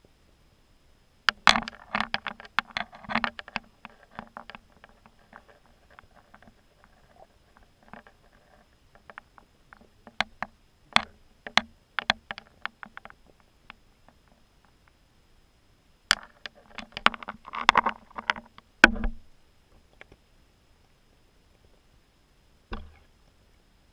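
Clusters of sharp clicks and knocks, muffled as heard by a camera underwater below the ice. There are three runs of rapid tapping, the last ending in a heavier thump, and one more knock near the end.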